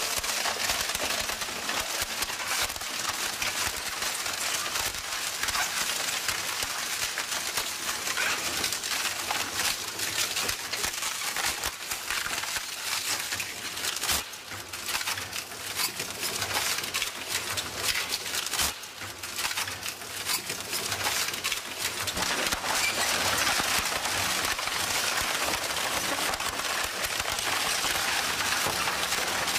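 Crushing machine breaking up material: a dense, continuous run of cracks and snaps, easing briefly twice.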